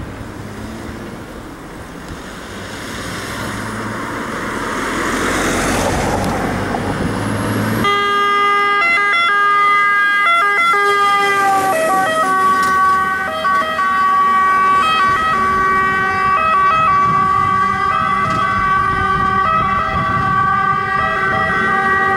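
Iveco Stralis AF190S40 fire engine approaching and passing: its engine and road noise grow louder for the first several seconds, then its Federal Signal Vama siren switches on about eight seconds in and sounds steadily, its pitch dropping slightly as the truck goes by.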